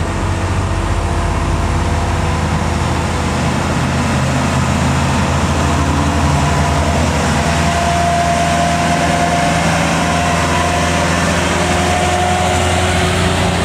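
Loaded light truck's diesel engine pulling steadily up a steep hill under a load of lightweight concrete blocks, with a thin whine on top in the second half.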